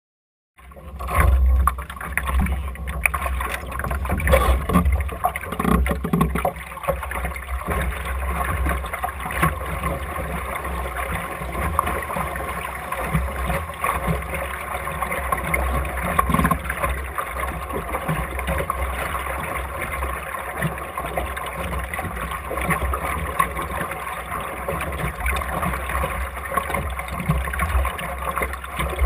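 Water rushing and sloshing along the hull of an Optimist sailing dinghy under way, with a steady low rumble; it starts suddenly about half a second in.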